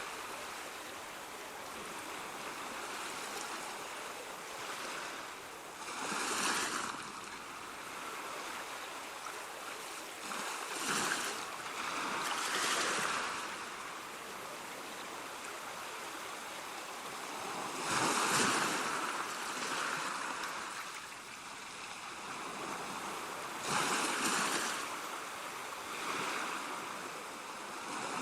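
Ocean waves breaking on a shore over a steady wash of surf, the sound swelling and falling away every few seconds, with the biggest break about two-thirds of the way through.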